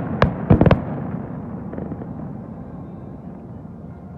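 Aerial fireworks shells bursting: three or four sharp bangs in the first second, then a low rumble that slowly fades away.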